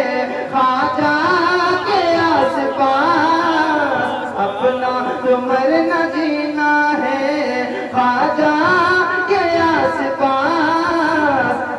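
A naat being sung: one voice drawing out long, ornamented melodic phrases that bend up and down in pitch.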